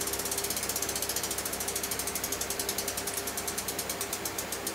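Rear freewheel pawls of a mountain bike ticking rapidly as the wheel spins freely, the clicks slowing as the wheel coasts down near the end.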